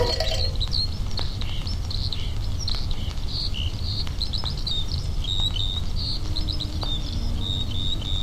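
Small birds chirping: many short, quick calls, ending in a run of repeated even notes near the end, over a steady low rumble.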